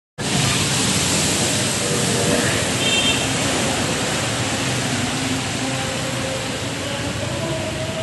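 Large sea waves breaking over a seawall and seawater rushing across a road: a loud, steady rush of surf and water.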